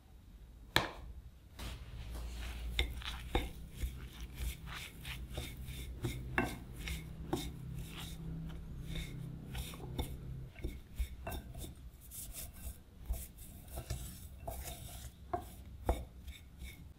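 Knife chopping food on a cutting board: a run of irregular sharp knocks, over a steady low hum.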